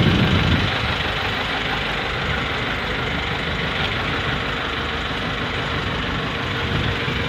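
Engine of a motorized bamboo outrigger boat running steadily.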